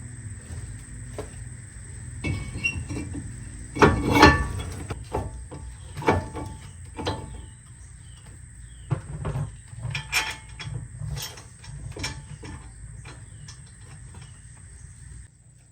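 Irregular metal clanks and knocks as a brake rotor is handled and slid back onto a truck's front wheel hub. The loudest clanks come about four seconds in, and they grow sparser toward the end.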